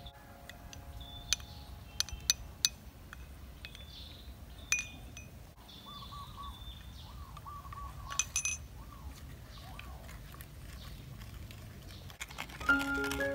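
A spoon clinking against small ceramic bowls and a clay mortar as seasonings are spooned in. There are a few sharp, ringing clinks in the first few seconds, another near the middle and a short cluster about two-thirds through. Background music starts near the end.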